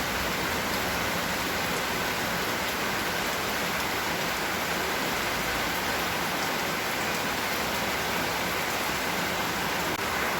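Steady rain falling and pattering on surfaces, an even hiss with no letting up.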